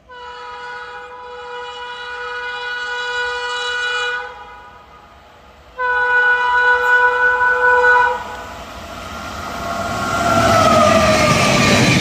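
WAP-5 electric locomotive's horn sounding two long blasts. The first swells louder over about four seconds and the second, louder one follows after a short gap. Then the rumble and wheel clatter of the express rise as it passes, with a brief falling whine.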